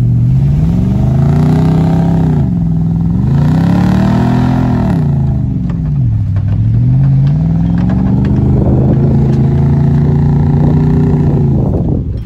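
A 4WD's engine towing a boat trailer through soft beach sand: its pitch climbs and drops back twice, then climbs again and holds steady. Light rattling over bumps partway through.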